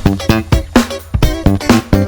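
Background music: an upbeat track with a steady beat, drums and guitar.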